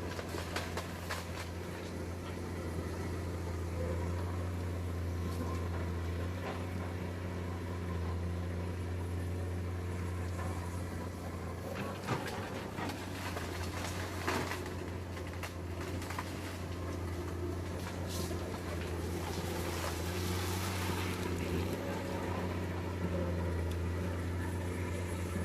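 Diesel engine of heavy earthmoving machinery running steadily with a low hum, with a few short knocks partway through.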